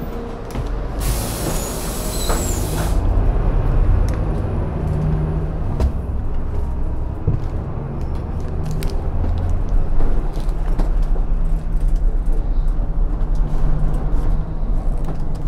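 Double-decker city bus running on the road, heard from inside with a steady low rumble. About a second in, a hiss of compressed air from the bus's air system lasts about two seconds.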